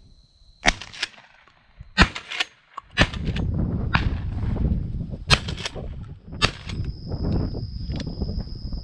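A series of shotgun shots from the dove field, about six sharp reports over the few seconds, some coming in quick pairs. A steady high-pitched whine comes in near the end.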